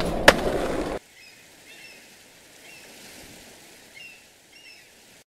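Skateboard wheels rolling with one sharp clack of the board, cut off abruptly about a second in. Then faint outdoor ambience with a few short, high bird chirps, ending suddenly near the end.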